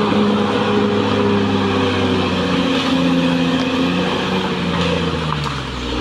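Caterpillar D6R XL bulldozer's diesel engine running under load while the dozer pushes soil and brush. The engine pitch sags slightly and the sound eases a little in the last second or two.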